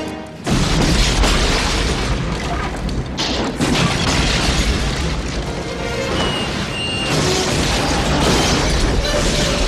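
A big film explosion: a sudden boom about half a second in, followed by a long, heavy rumble of fire and flying debris, with a second jolt a few seconds later. Dramatic film score music plays under it.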